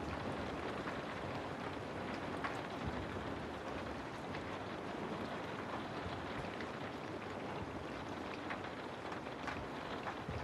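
Steady rushing of water, with scattered faint ticks and drips through it.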